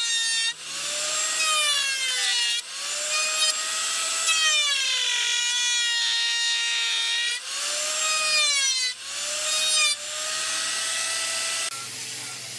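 Electric woodworking machine cutting a small wood block: its motor whine sags in pitch as the cutter bites and climbs back between passes, over the hiss of wood being cut. There are several passes with short breaks between them, and near the end it drops to a quieter, lower hum.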